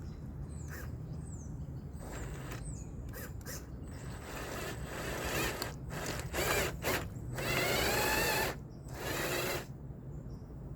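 RC truck's electric motor and gears whining in several bursts of throttle, with the wheels spinning. The longest, loudest burst comes a little past the middle.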